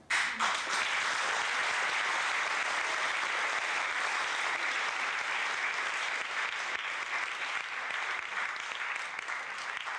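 Audience applauding, starting suddenly and holding steady, easing off a little near the end.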